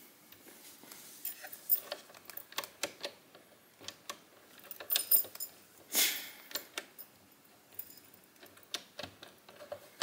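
Scattered small metallic clicks and rattles of a key being turned and jiggled in a euro cylinder lock, with a louder rattle about five and six seconds in. The cylinder's cam is being lined up so the cylinder can slide out of the lock case, a finicky step where the cam tends to catch.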